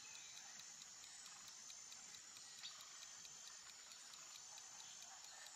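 Faint clock-like ticking of a quiz countdown timer, an even run of soft ticks over a steady faint hiss.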